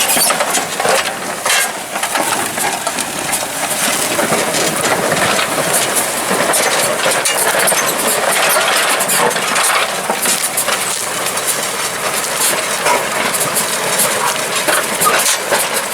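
Tractor pulling a plough through stony ground: steady engine and machinery noise with many small clinks and rattles throughout.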